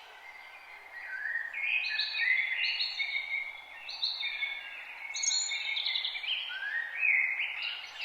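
Forest songbirds singing, with repeated phrases of quick, stepped whistled notes starting about a second in, over a steady background hiss.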